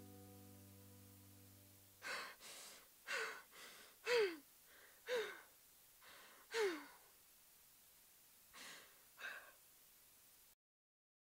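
A sustained musical chord fades out, then a woman breathes in ragged, sobbing gasps, about ten of them, several ending in a short falling whimper, the last two softer.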